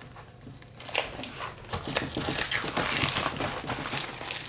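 Plastic wrapping on a trading-card box or pack crinkling as it is handled and torn open, starting about a second in.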